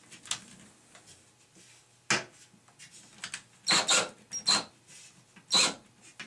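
Cordless drill driving screws into an aluminium shower-door wall jamb in about five short trigger bursts.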